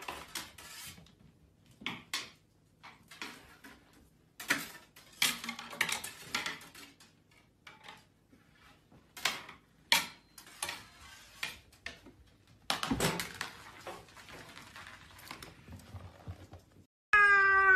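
Irregular knocks and clatter of household things, such as cupboard doors and objects on a kitchen counter, with a dozen or so short sharp sounds spread out and quiet gaps between them. A loud wavering cry starts near the end.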